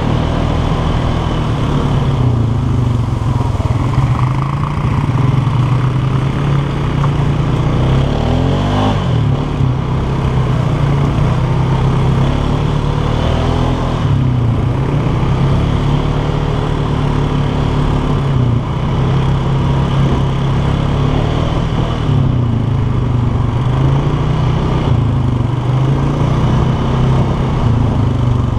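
Polaris 450 ATV engine running under way, its pitch rising and falling as the throttle is worked, with a quick dip and climb in pitch about nine seconds in.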